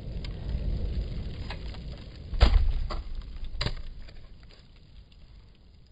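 Aftermath of a hydrogen-oxygen (HHO) gas explosion in a large plastic jug: a low rumble dies away while debris comes down. Two sharp knocks stand out, the louder about two and a half seconds in and the other about a second later.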